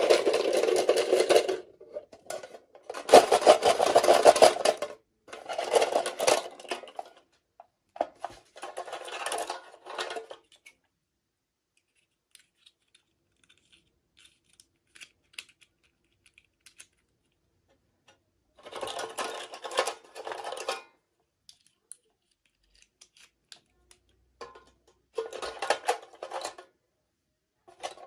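Packaging being handled and crinkled in bursts of rustling, each a second or two long, with short silent gaps: several close together early on, then two more after a long pause.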